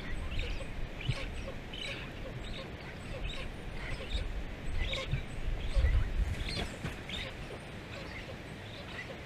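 Black stork chicks' short begging calls repeating about twice a second; the chicks have gone hungry for over a day and a half. In the middle come low thuds from the adult stork's wingbeats as it takes off from the nest.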